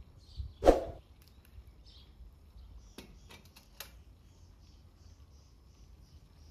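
Tea-making sounds with a metal kettle and a tea glass: a brief loud clatter about a second in, then a few sharp clicks as the kettle is set down on the iron fire grate. Faint high chirps repeat about twice a second in the background.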